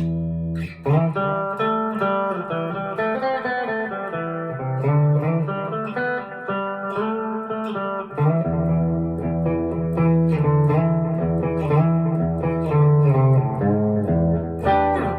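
PRS SE Custom 24 electric guitar played on a clean tone through a Line 6 Catalyst 60 amp: picked notes and chords over low notes left ringing, with a fresh chord struck near the end.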